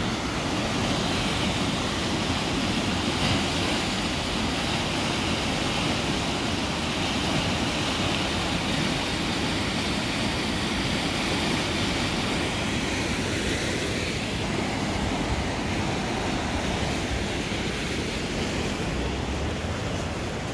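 Swollen, muddy river in flood, fast water rushing steadily through its walled channel and breaking over rough stretches.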